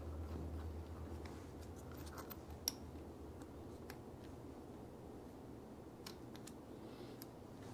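Faint small metallic clicks and ticks of an Allen key working in socket-head bolts on a steel plate as they are loosened, with one sharper click a little over two and a half seconds in.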